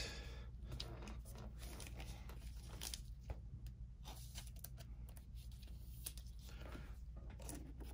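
Faint rustling and light clicks of trading cards being handled and shuffled.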